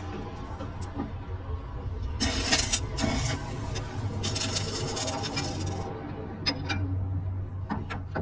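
Workshop machinery running with a steady low hum. Two bursts of harsh, hissing scraping noise come a couple of seconds in and again about halfway. A few sharp metallic clicks follow near the end.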